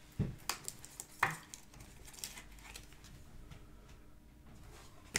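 Light clicks and taps of trading cards and a clear plastic top loader being handled on a desk, with faint rustling between and a sharper knock near the end.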